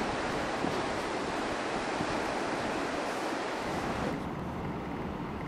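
Ocean surf breaking on a beach, a steady rush of waves; the higher hiss thins out about four seconds in.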